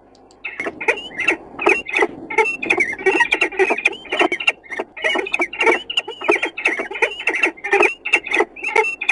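Birds calling at a prey hand-over, a rapid, continuous string of squeaking and harsh rasping 'sawing' calls that starts about half a second in.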